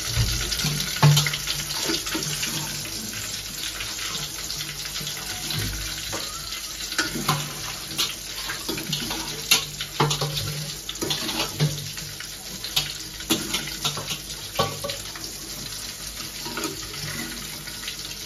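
Indian halibut sizzling as it shallow-fries in hot oil in an aluminium pan, a steady hiss. A spoon basting oil over the fish clinks against the pan now and then.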